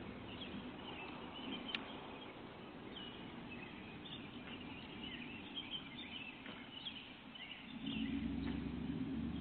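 Scattered bird chirps over a faint low rumble, with a single sharp click about two seconds in. Near the end a motor vehicle's engine comes in as a steady low hum.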